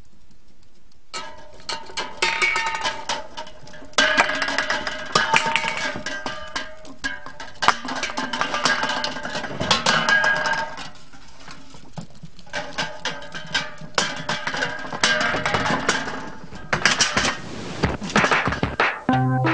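Music with busy, clattering percussion and pitched notes, coming in about a second in.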